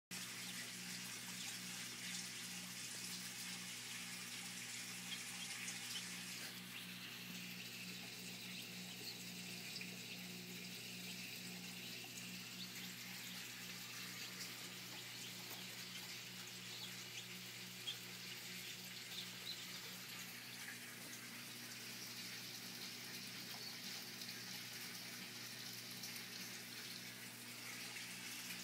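Faint dry rustling and crackling of a mass of mealworms crawling over one another in bran, many tiny clicks over a steady low hum.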